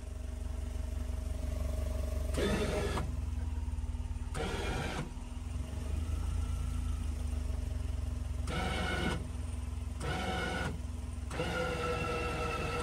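All-terrain vehicle's engine running with a steady low drone, revving up in about five short bursts as the stuck vehicle is eased forward.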